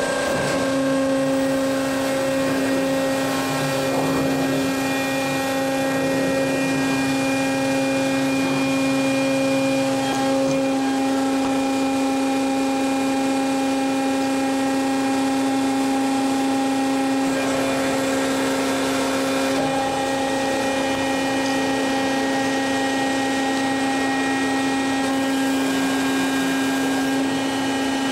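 Electric forklift-battery changing machine running: a loud, steady electric hum, one held tone with overtones that does not change.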